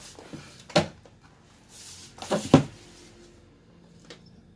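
Knocks and clatter of a steel ruler being handled and laid down on a paper trimmer's bed: one knock about a second in, then a louder double knock a little past halfway.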